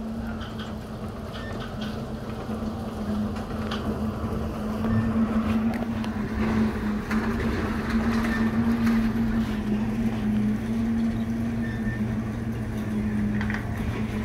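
Big Chute Marine Railway's boat carriage travelling on its rails: a steady mechanical hum over a rumble, with a few knocks, growing louder about five seconds in.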